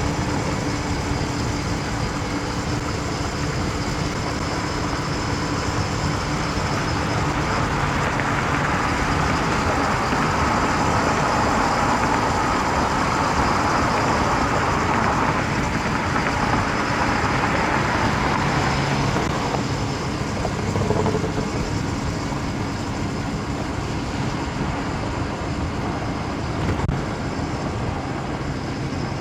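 Motor vehicle running on a road: a steady engine note under road and rushing noise, which swells louder for several seconds around the middle.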